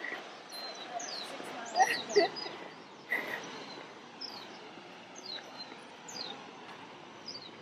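Small birds calling with short, quickly falling chirps, one every second or so, over a steady rush of noise from the waterfall. Brief snatches of voices come about two seconds in and again about three seconds in.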